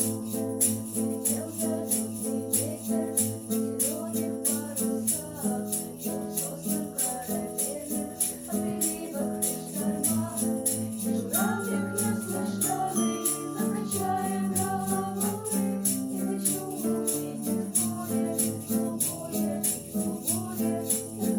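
A song playing: sustained chords with a steady, quick jingling beat of about three strokes a second.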